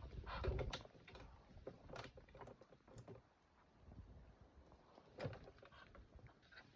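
Faint, scattered light taps and knocks, with a soft thump about half a second in: a Muscovy duck stepping about inside a wooden coop and climbing out through its pop door.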